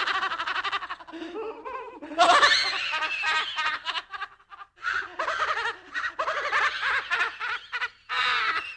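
Spooky, theatrical laughter sound effects: a cackle, then a second longer laugh starting about two seconds in, another after a short break, and a brief last laugh near the end.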